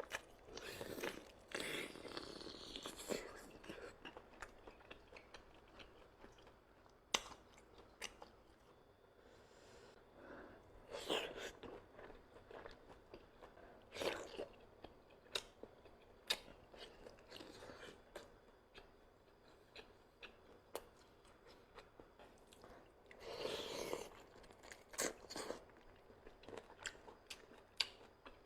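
A person chewing and biting food close to the microphone. The chewing comes in short bursts, with sharp crunches or clicks scattered in between.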